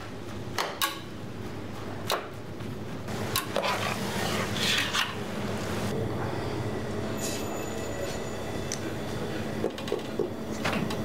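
Stainless steel bowl and stockpot clinking and knocking as minced beef is handled and tipped into the pot, with a stretch of scraping around the middle. A steady hum comes in about halfway through.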